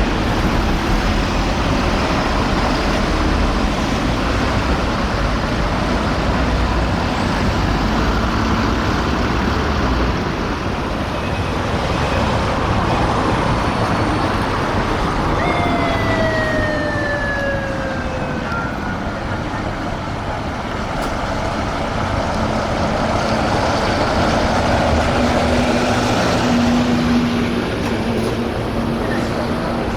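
Road traffic noise, with a police motorcycle's siren giving one falling wail about halfway through.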